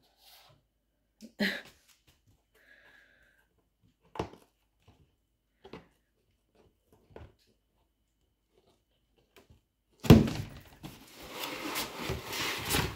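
Cardboard box handled by a husky puppy on a hardwood floor: a few separate light knocks, then, about ten seconds in, a loud rustling and scraping of the cardboard lasting nearly three seconds.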